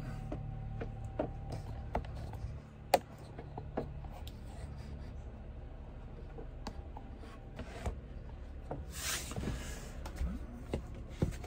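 Small clicks, rubbing and scratching as a strap sandal is pulled on and its webbing straps are worked by hand. There is a short rasping burst about nine seconds in.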